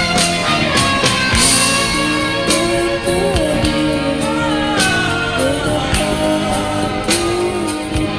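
Karaoke backing track of a pop ballad with guitar and a steady beat, with a voice singing the melody over it.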